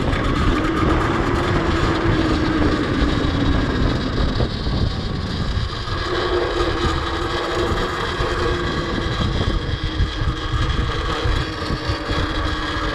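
QS Motor 2000 W mid-drive electric motor of a custom pit bike whining under way. Its pitch rises slightly in the first couple of seconds, dips around four seconds in and holds steady from about six seconds. Wind rumbles on the microphone underneath.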